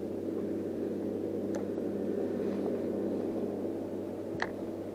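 Steady low hum with a sharp click about four and a half seconds in and a fainter one earlier, as hands work a spinning reel and its line.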